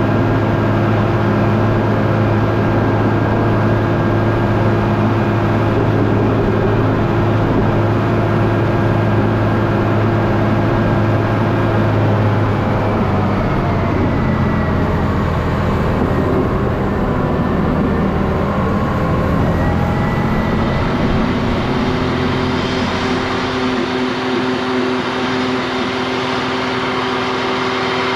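A heavy vehicle engine running steadily. Its pitch drops about halfway through and shifts again toward the end, as engine speed or load changes.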